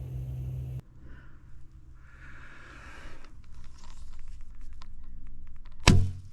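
Recurve bow being shot: rustling, scraping and small clicks as the arrow is readied and drawn, then a single loud, sharp thump of the string's release near the end.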